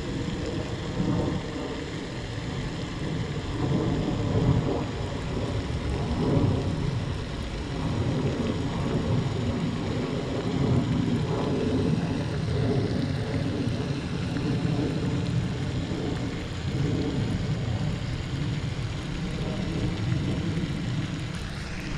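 Wind buffeting the microphone: a steady low rumble that swells and eases in uneven gusts.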